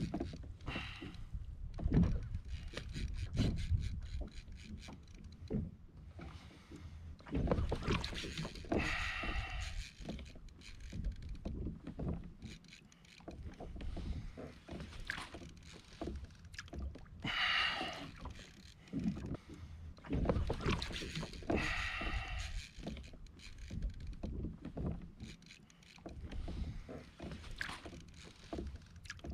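Shimano Ocea Jigger conventional reel cranked hard against a heavy fish on a deeply bent jigging rod, under irregular surges of wind buffeting the microphone and water moving against the kayak, with short clicks and a few brief bursts of hiss.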